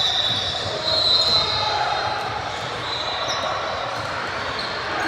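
Basketball game in a gym: the ball bouncing on the court, several short high squeaks of sneakers on the floor, and crowd chatter echoing in the hall.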